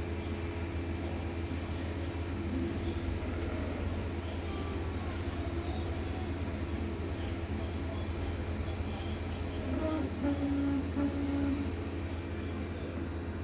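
Prusa MK3S 3D printer printing, its stepper motors sounding over a steady low hum, with a short steady-pitched whine about ten seconds in as the print head makes a longer move.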